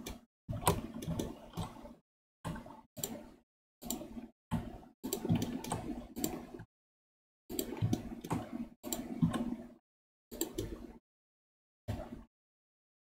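Irregular bursts of computer keyboard and mouse clicking, each cut off abruptly into silence.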